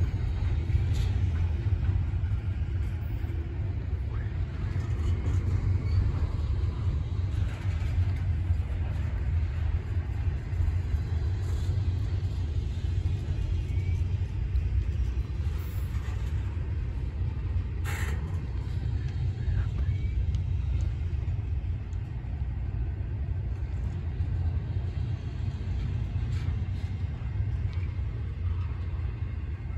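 Long intermodal freight train rolling past: a steady low rumble of its cars on the rails, with one sharp click about eighteen seconds in.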